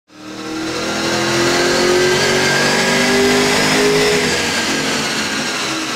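HSV GTS's naturally aspirated 6.2-litre V8 running under load on a chassis dyno, its note rising slowly through a pull, then easing off about four seconds in. It fades in at the start.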